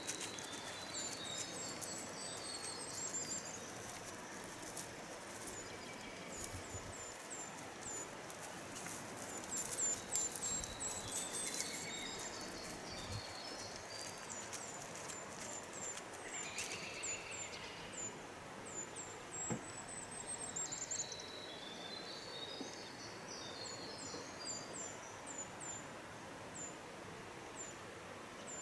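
A small songbird singing over and over: each song is a run of very high, thin notes that drops into a lower, tumbling series, repeated every several seconds over a steady outdoor hiss. A few sharp clicks come around ten seconds in.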